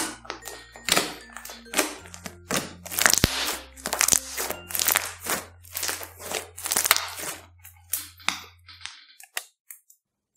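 Pink fluffy slime squeezed and pressed by hand, giving a run of sharp crackles and pops. Light background music plays under it and stops about nine seconds in.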